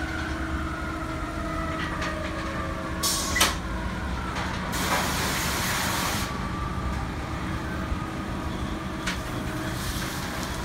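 Car wash tunnel equipment running with a steady machinery hum. Two bursts of hissing spray, a short one about three seconds in and a longer one from about five to six seconds, plus a couple of light clicks.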